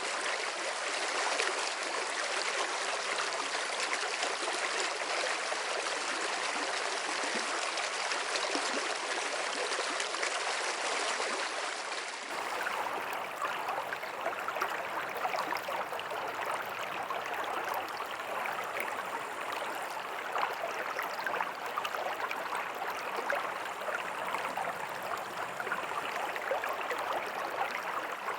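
Water of a stream flowing steadily. About twelve seconds in the sound changes abruptly to a duller, deeper rush.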